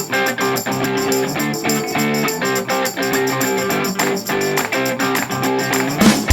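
Background music led by a plucked guitar, with a beat and drums coming in near the end.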